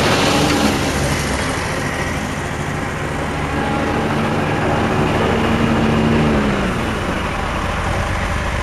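Scag Cheetah zero-turn commercial mower's engine running steadily while mowing, its pitch wavering and dipping about two-thirds of the way through.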